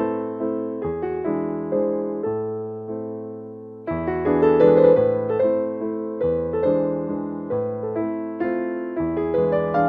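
Background music: a piano tune with a bass line, notes struck in a steady rhythm.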